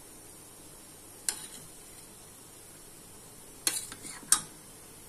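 Steel ladle clinking against a metal vessel of syrup: one clink about a second in, then a quick run of clinks and a sharp final clink near the end, each ringing briefly.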